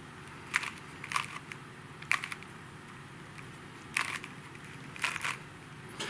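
Layers of a plastic MoYu 4x4 speedcube being turned by hand, five short clacks at uneven intervals.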